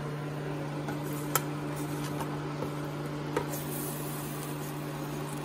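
Tongs scraping and clicking against a metal roasting pan as chicken pieces and roasted vegetables are turned, with a few sharp clicks, over a steady low hum.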